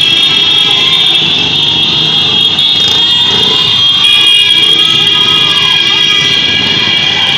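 Many motorcycles running together in a rally crowd, with a steady high-pitched tone lasting throughout and short rising-and-falling wails over the engine noise.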